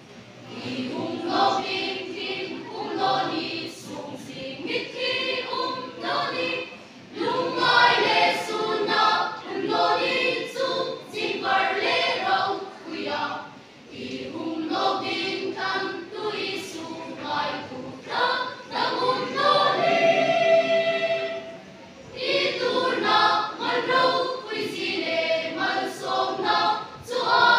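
A mixed choir of young men and women singing a Mizo song together, in long sung phrases with short breaks between them.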